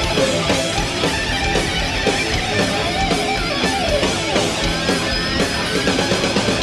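Thrash metal band playing live: heavily distorted electric guitar playing a lead line with bent, gliding notes over rhythm guitar, bass and drums.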